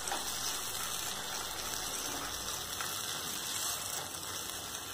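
Thick onion-tomato masala sizzling steadily in a nonstick kadai as a spatula stirs it, fully cooked with the oil separated out.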